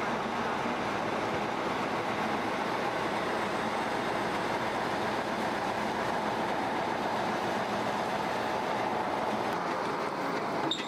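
Ural army truck's engine running steadily as it tows a MiG-35 fighter jet on a tow bar.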